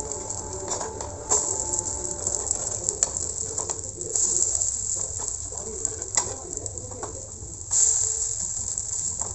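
Adai dosas sizzling in oil on a dosa tawa, with a metal spatula clicking and scraping on the pan as they are flipped and pressed. The sizzle jumps louder about a second in and again near the end, as dosas are turned onto the hot oil.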